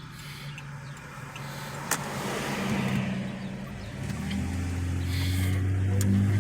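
Car engine idling, then a deeper engine hum swells in from about four seconds and is loudest near the end, as of a vehicle drawing close; a single sharp click about two seconds in.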